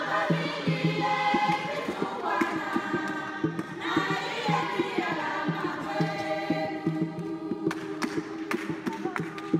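A group of voices singing together as a choir, with short low beats running under the singing.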